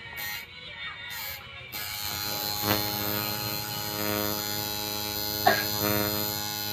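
Electric tattoo machine running with a steady buzzing hum. It thins out for about the first second and a half, then holds steady, with a couple of light clicks later on.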